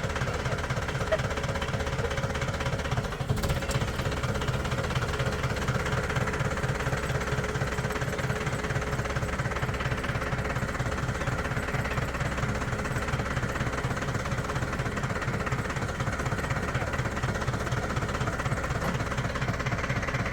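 An engine running steadily, with a fast, even pulsing beat.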